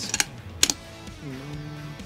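Sharp metallic clicks of a bolt-action rifle's bolt being worked in the receiver, about three in the first second, with the trigger freshly fitted with a lighter spring kit. Faint background music runs under them.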